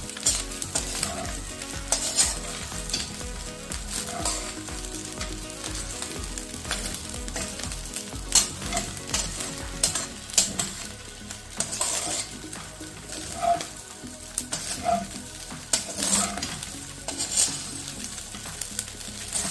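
Fried rice with egg and sausage sizzling in a hot oiled wok while it is stir-fried, tossed and turned with a metal spatula. The spatula scrapes and clicks against the pan at irregular moments over the steady sizzle.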